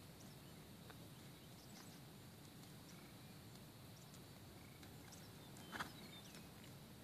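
Near silence: faint outdoor background with a few soft, irregular ticks and one short, sharper sound about six seconds in.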